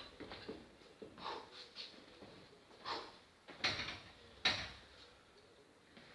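A weightlifter's short, sharp breaths as he sets up over the barbell before a clean: about five faint ones, roughly a second apart.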